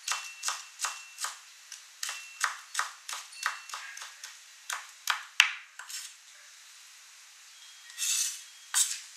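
Kitchen knife cutting carrot into thin strips on a wooden cutting board: even knocks of the blade on the board, about two to three a second, stopping about six seconds in. Later comes a short scrape as the cut strips are swept together on the board, then a single knock near the end.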